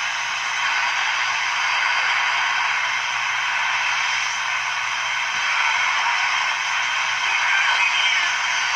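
Hallicrafters S-38 shortwave receiver's loudspeaker giving a steady hiss of band static while the tuning knob is turned between stations.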